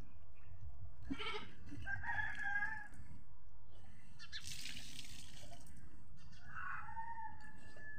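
Farm animals calling: one drawn-out call about a second in and another near the end. In between, a short splash of water as a wet cloth is wrung out.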